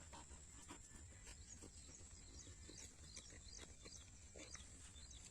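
Near silence: faint outdoor background with a steady high hiss and scattered soft chirps and clicks.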